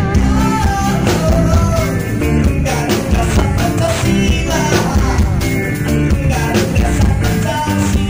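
Live rock band playing, with electric guitars, bass and drums.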